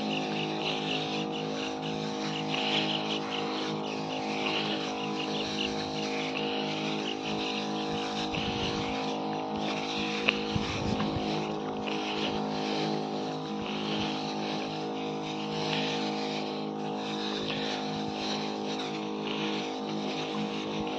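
Motorised pesticide sprayer running steadily while spraying, a steady motor drone with a hiss above it, and two light knocks about ten seconds in.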